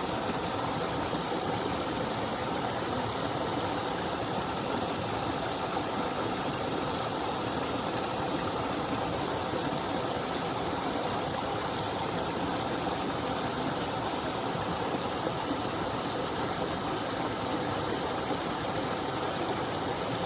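A small waterfall pouring steadily: a constant, even sound of falling water.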